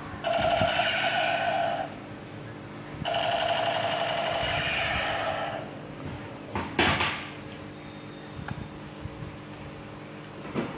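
Battery-powered light-up toy machine gun playing its electronic firing sound effect in two buzzy bursts, the first about a second and a half long, the second about two and a half seconds. A single sharp knock comes about seven seconds in.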